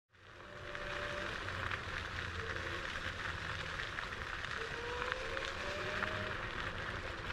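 IO HAWK Legend electric scooter riding over forest ground: a steady noise of the tyres rolling over dirt and roots, with the faint whine of its 500-watt geared motor rising slightly in pitch around the middle. The sound fades in over the first second.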